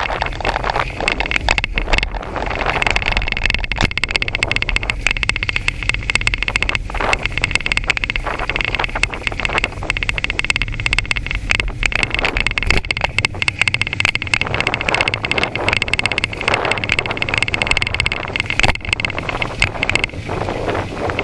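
Riding a bicycle on an asphalt path: wind buffeting the microphone, heavier in the first half, over tyre noise and the rattling clicks of the bike and its metal front basket over the pavement.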